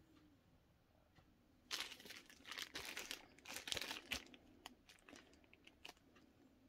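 Packaging crinkling and rustling as the next item is taken out of its wrapping: a dense burst of crackly handling starting a little under two seconds in, then a few lighter crinkles.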